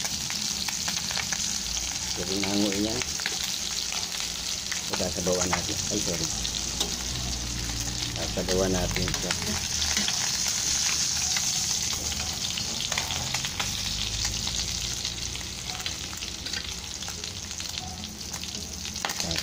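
Pork steak slices pan-frying in hot oil: a steady sizzle with fine crackling spatter.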